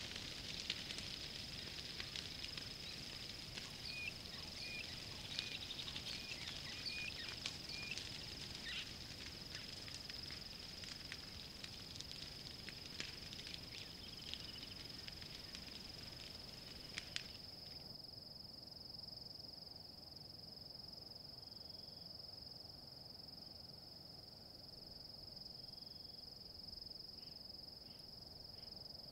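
A steady, high-pitched insect trill under the sharp pops and crackles of a savannah bushfire burning. The crackling cuts off suddenly a little past the middle, leaving the insect trill and a few faint short chirps.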